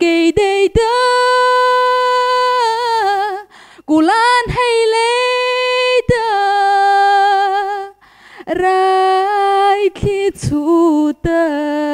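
A young woman singing unaccompanied into a handheld microphone, in three long held phrases with short breaths between them, the last one lower.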